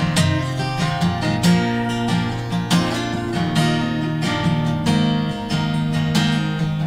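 Two acoustic guitars playing together in an instrumental passage, strummed and picked in a steady rhythm with no vocals.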